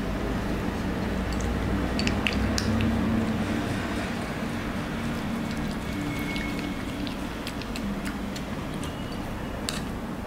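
Bichon licking and eating soup from a plastic spoon: wet squishy smacking with scattered light clicks, over a steady low hum.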